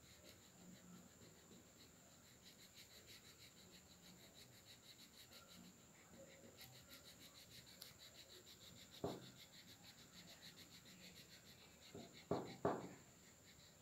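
Faint quick back-and-forth scratching of a wax crayon rubbed on paper while colouring. Three short knocks stand out, one about nine seconds in and two close together near the end.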